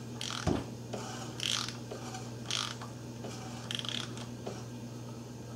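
Ratchet wrench clicking in short bursts, about one a second, as it turns the crankshaft of a 2001 Ford Escape's 2.0L engine by hand through two revolutions to check timing after a new timing belt. A steady low hum runs underneath.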